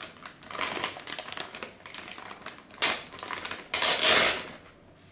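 Clear plastic bag rustling and crinkling as hands pull it off a car head unit, in irregular bursts with the loudest rustle about four seconds in.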